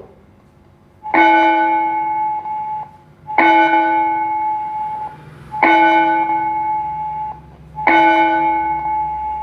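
Gong-like bell chime from an automatic school bell timer, struck four times a little over two seconds apart, each stroke ringing out and fading.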